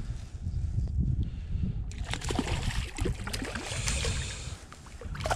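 A hooked fish splashing and thrashing at the water's surface as it is brought to hand, in a run of irregular splashes starting about two seconds in, with a louder burst near the end.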